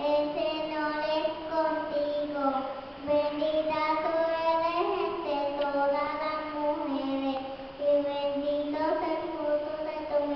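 Children singing a slow devotional song together, holding long notes in a smooth melody.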